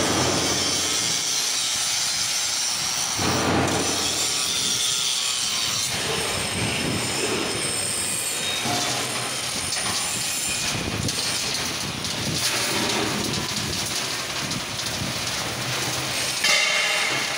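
Reversible drum concrete mixer batching plant running: a steady, dense mechanical grinding and rattling as sand and aggregate are loaded, with high-pitched metallic squeals near the start and again near the end.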